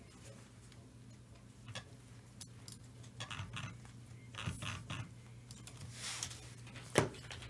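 Gloved hands flipping through a stack of Topps Chrome Sapphire trading cards: light, scattered clicks and taps of the stiff chrome card stock sliding and snapping against each other, busiest in the middle, with one sharper click near the end. A faint steady hum runs underneath.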